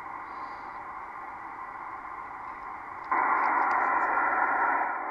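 Receiver white noise from a Kenwood TS-700SP VHF transceiver's speaker, a steady hiss that jumps suddenly much louder about three seconds in as the DX switching relay's cleaned contacts are worked. The louder hiss is the sign of the receiver getting its sensitivity back after oxidised relay contacts had cut it off.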